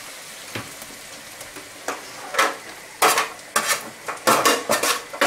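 A metal spoon scraping and clinking against a metal roasting tin as the last drippings are scraped out, in a quick irregular run of strokes starting about two seconds in. Under it, a steady low sizzle from a pan on the hob.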